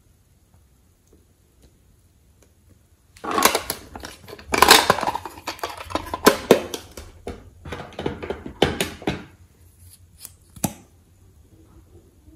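Hard plastic of a small toy makeup case being handled and worked at: a quick run of scraping, rattling and clicking that starts about three seconds in and lasts several seconds, then one sharp click near the end.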